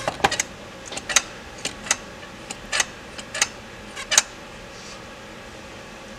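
Light, irregular metal clicks and taps from hands working the parts of an Edelbrock 1406 carburetor, about a dozen over the first four seconds, then stopping, leaving a steady low background hum.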